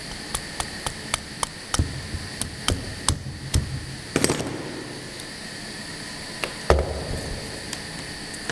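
Automatic through-hole component insertion machine at work: a quick run of sharp mechanical clicks, about three or four a second, over a steady machine hum with faint high tones. A denser clatter comes about four seconds in, then a few louder knocks spaced out.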